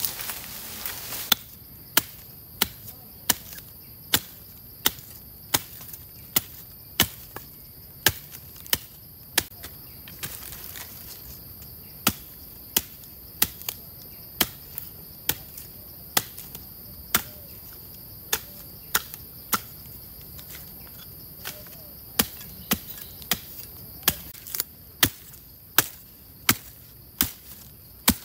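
Large knife chopping into the base of a thin sapling: a steady run of sharp strikes, a little more than one a second, with a couple of brief pauses. Insects drone steadily at a high pitch behind.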